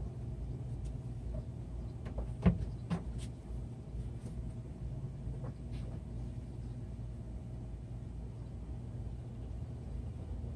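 A plastic gas can being handled and tipped up to pour fuel into a small engine's tank: one sharp clunk about two and a half seconds in and a few lighter knocks around it, over a steady low rumble.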